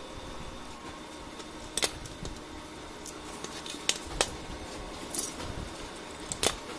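Sharp plastic-and-metal clicks and knocks, about five scattered hits, as an HP LaserJet fuser assembly is handled and its fuser film sleeve is worked off the frame, over a faint steady hum.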